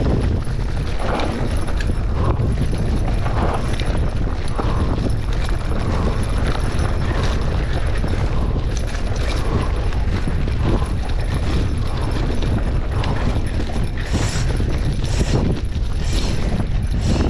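Mountain bike descending fast on dry, loose dirt singletrack: steady wind rumble on the camera's microphone, with tyre crunch and knocks and rattles from the bike over bumps. Near the end come several short scraping hisses.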